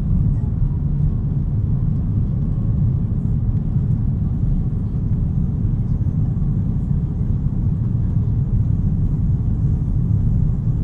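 Steady low rumble of a jet airliner heard from inside the passenger cabin, engine and airframe noise holding even.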